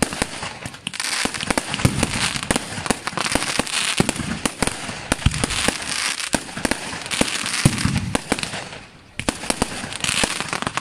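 Fireworks display: aerial shells bursting in quick succession, many sharp bangs over dense crackling, with a brief lull about nine seconds in before the bangs resume.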